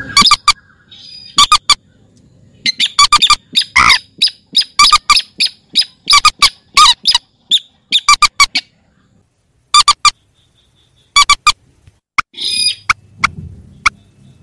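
Calls of rails (burung mandar and sintar): loud, sharp, short notes repeated in rapid clusters with brief pauses, and one rougher, harsher call near the end. It is a lure recording used to draw these rails into nets at night.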